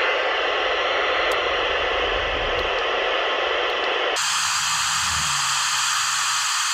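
CB radio receiver hissing with band static on an open channel, no station answering a call for contact on 27.575 MHz. About four seconds in, the hiss changes abruptly to a thinner, higher-pitched hiss.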